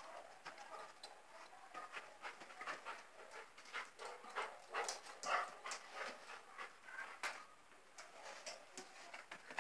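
Dog panting, with short irregular clicks from its claws on the tiled floor as it moves about.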